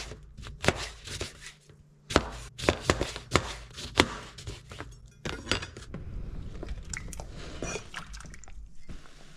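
Sharp knocks and clatter of a cooking pot and gear being handled while crawdads are readied for boiling, a quick run of hits over the first five seconds or so, then a steady hiss for the last few seconds.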